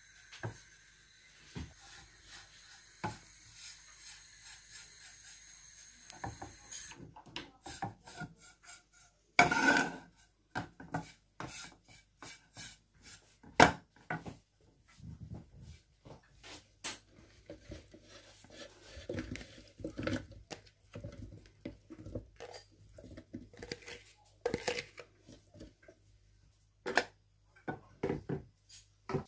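A silicone spatula stirring dry breadcrumbs in a nonstick frying pan: irregular scraping and rustling with knocks and taps against the pan, two of them much louder. A faint steady whine runs under the first several seconds.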